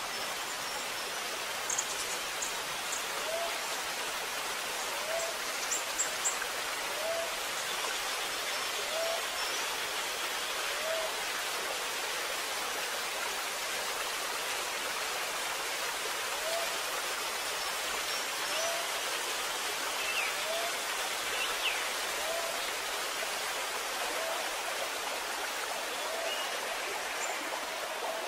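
Running water rushing steadily, as of a stream or small waterfall. A short, low call repeats about once a second over it, with a few faint high chirps now and then.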